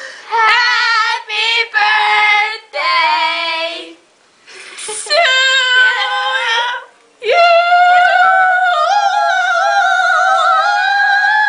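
A girl singing loudly in a high voice: several short phrases with brief breaks, then from about seven seconds in one long held high note that climbs slightly.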